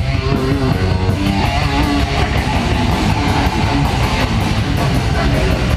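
Live heavy metal band playing loudly: electric guitars over a drum kit, with cymbal hits throughout, recorded from among the crowd.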